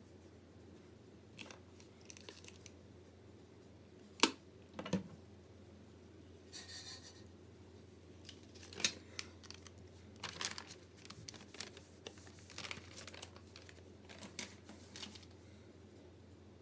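Sheets of paper being handled: rustling and crinkling as a sheet is laid over a painting and pressed flat by hand. A scatter of sharp taps and clicks runs through it, the loudest about four seconds in.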